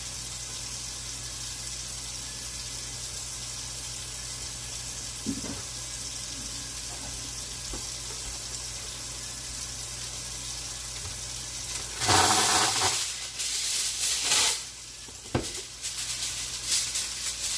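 A steady hiss, then from about twelve seconds in, aluminum foil crinkling and rustling loudly in irregular bursts as it is pulled and pressed over a casserole dish.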